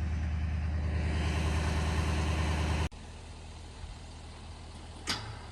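Engine idling steadily with a low, even hum. It cuts off abruptly about three seconds in, leaving a quieter background with a brief knock near the end.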